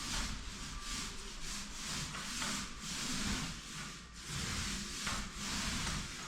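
Paint roller loaded with latex mist-coat paint being worked up and down a bare plaster wall, a repeated rubbing swish with each stroke.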